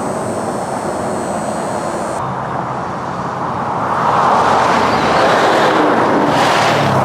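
Steady noise of highway traffic passing close by, growing louder about four seconds in as a nearer vehicle goes past.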